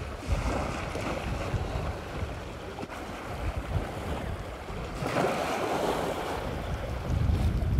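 Steady rushing noise with a low rumble, swelling slightly about two-thirds of the way through.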